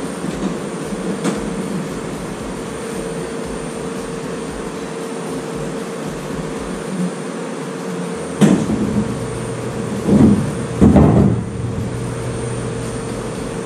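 Large sheet-metal machine hood being handled and set down off to one side: a light knock about a second in, a thump about eight and a half seconds in, then two louder, rough metal knocks and scrapes over the next few seconds. Under it, a steady machine-shop hum with a faint high whine.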